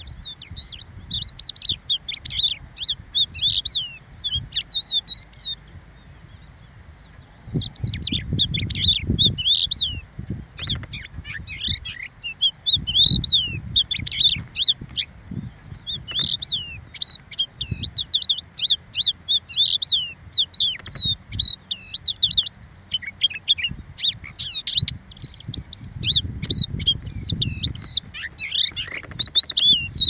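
Crested lark singing: a long, fast run of fluid, warbling whistled phrases, high-pitched, with one pause of about three seconds near the start.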